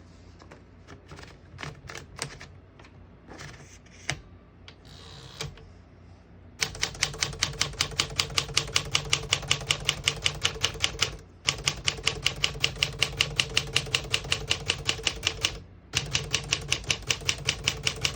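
1955 Smith-Corona Silent-Super manual portable typewriter: a few scattered clicks of the mechanism being handled, then rapid, even typing at about six or seven keystrokes a second, broken twice by brief pauses.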